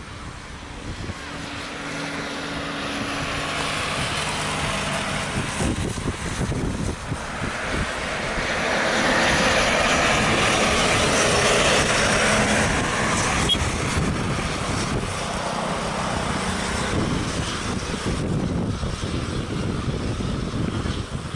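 Boeing 737 jet engines running at low power as the airliner rolls past after landing. The engine noise swells to its loudest about halfway through, then eases off somewhat.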